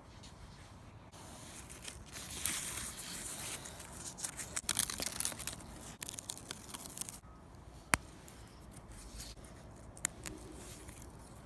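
Birch bark being peeled apart into thin papery layers by hand, a dry crackling and tearing that is busiest in the middle, with one sharp click about two-thirds of the way through.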